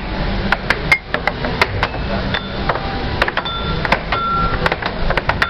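Air hockey game: the puck clacks sharply and irregularly off the plastic mallets and the table's rails, over a steady arcade background with a couple of short electronic beeps near the middle.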